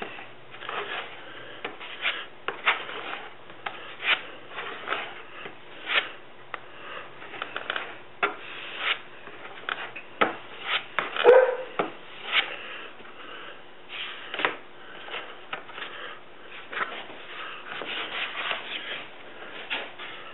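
A plastic spreader scraping and smearing thick tooling gel coat across cardboard in short, irregular strokes, mixing in hardener until it is like putty. There is one louder short sound about halfway through.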